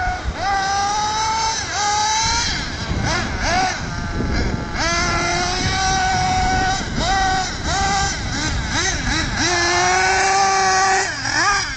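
Thunder Tiger EB4 S3 nitro RC buggy's .28 glow engine revving as it is driven, the pitch rising and falling in quick repeated throttle blips. It holds a long steady high-revving run shortly before the end, then drops away.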